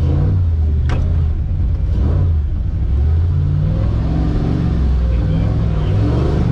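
Competition 4x4 truck's engine heard from inside the cab, revving up and down as the truck works over rough, holed ground, with a sharp knock about a second in.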